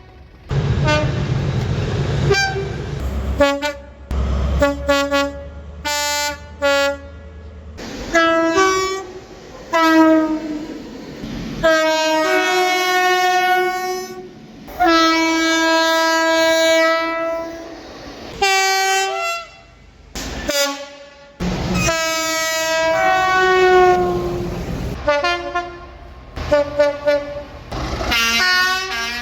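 Train air horns sounding a series of short toots and long blasts, each a chord of several tones at once, in clips joined by abrupt cuts. A low rumble runs under the first few seconds.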